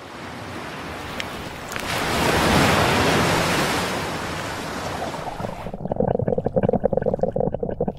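Sound effect of a rough sea: a rush of waves that swells to its loudest about a third of the way in. About two-thirds in it gives way to a quicker, rapidly pulsing sound.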